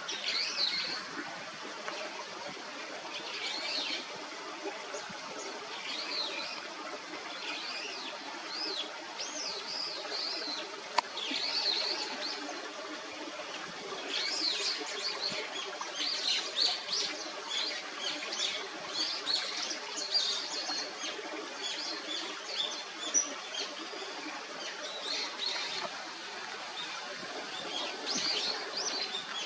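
Birds chirping in short, high, repeated calls, scattered throughout over a steady background hum, with one sharp click about eleven seconds in.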